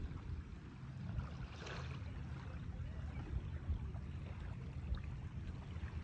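Wind buffeting the microphone: an uneven low rumble.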